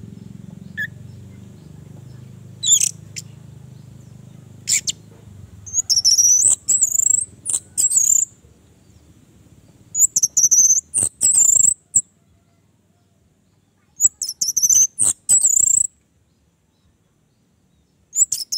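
Orange-headed thrush singing: high, fluid song phrases about two seconds long, repeated roughly every four seconds with short silences between them, after a couple of single call notes.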